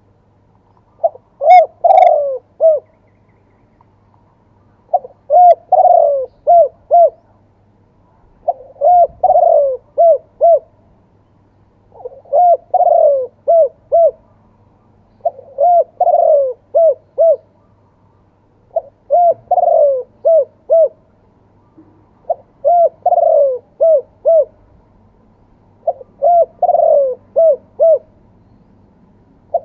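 Spotted dove cooing, its song in the style fanciers call 'two kuk': eight phrases of several low, bubbling coo notes each, repeated about every three and a half seconds with short pauses between.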